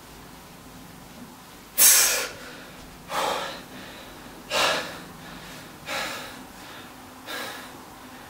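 A man breathing hard after an ab workout set: five forceful exhalations about a second and a half apart, the first the loudest. He is catching his breath after the exertion.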